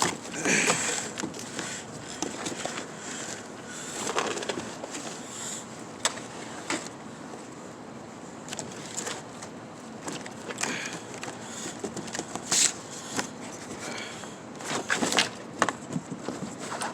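Scattered knocks, scrapes and rustling from handling the new radiator's cardboard box as it is opened with a box cutter.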